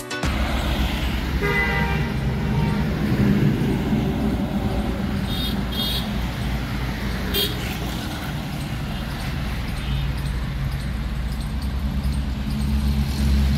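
Highway traffic passing, with truck and car engines rumbling and a horn sounding about a second and a half in, then short high toots around six and seven and a half seconds in. The engine rumble grows louder near the end as vehicles, among them a mini tractor, pass close by.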